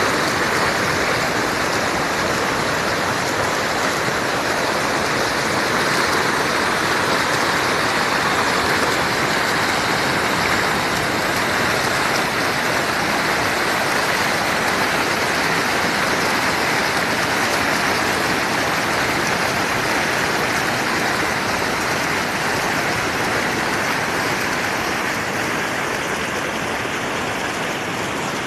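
Water rushing steadily at a dam, an even hiss with no breaks.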